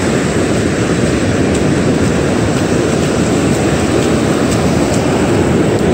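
Loud, steady noise of surf washing up the beach at the water's edge, mixed with wind buffeting the microphone.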